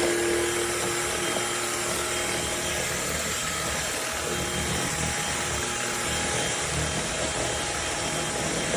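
MONSGA MV3 cordless stick vacuum running steadily, a continuous motor whir and rush of air.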